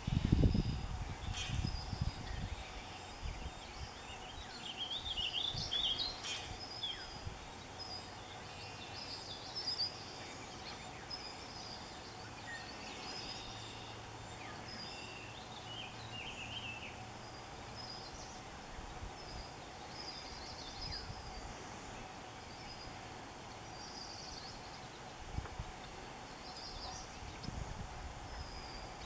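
Marsh ambience: small birds chirping in short high calls that repeat every second or two, over a steady low hum. A low rumble on the microphone comes in the first couple of seconds.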